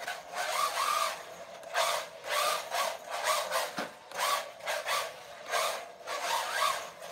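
Small brushless RC drift car on hard drift tyres, sliding and scrubbing across carpet in short throttle bursts one after another, with a faint electric motor whine.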